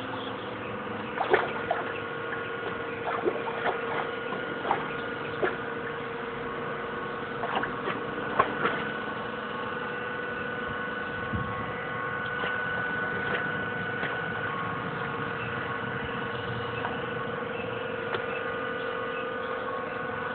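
Old English Bulldog paddling in a swimming pool: water sloshing with scattered short splashes, most of them in the first half, over a steady motor hum.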